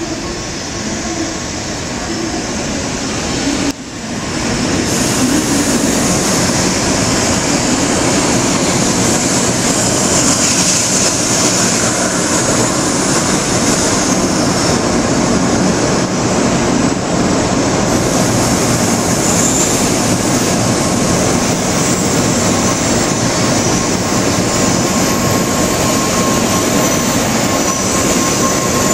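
N700-series Shinkansen train pulling into the station platform, slowing as its cars slide past: a steady loud rush of wheel, air and running noise that grows a few seconds in and then holds. A thin high squeal creeps in near the end.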